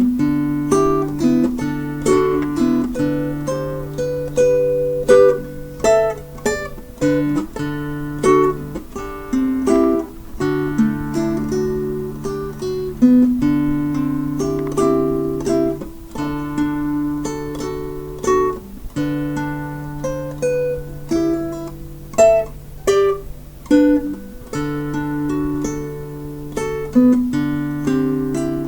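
Instrumental music on acoustic guitar, plucked notes in a steady rhythm over a held low bass note.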